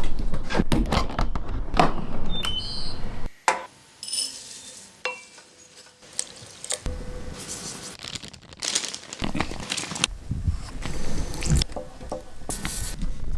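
Dishes and cutlery clinking and scraping in irregular kitchen clatter, with a sudden drop about three seconds in and a quieter stretch before it picks up again.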